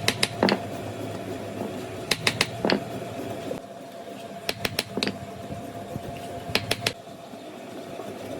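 Sharp knocks or taps in quick groups of three or four, a group about every two seconds, over a steady hum.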